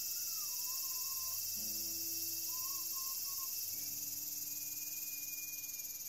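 Cicadas singing: a steady, high-pitched hiss. Faint music is heard underneath.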